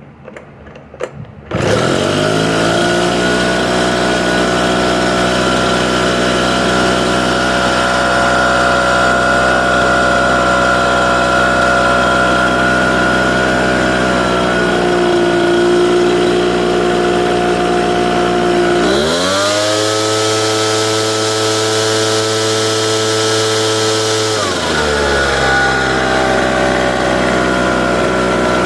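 Echo PB770H backpack blower's two-stroke engine started with no prime and no choke. After a few clicks of the pull-start it catches about a second and a half in and settles into a steady idle. About two-thirds of the way through it revs up to a higher steady pitch for about five seconds, then drops back to idle. It is a hot restart that goes off readily, so the hard-starting-when-hot fault does not show.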